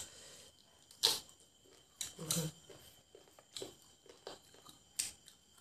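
Close-up eating sounds of chewing and lip-smacking on cooked chicken leg pieces, with meat being torn off the bone by hand: a string of short, separate smacks and clicks about a second apart.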